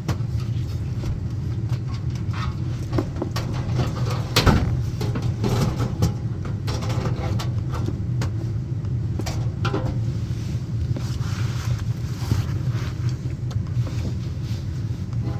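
Sharp metal clicks and knocks from furnace blower parts being handled and fitted into place, the loudest about four and a half seconds in, over a steady low hum.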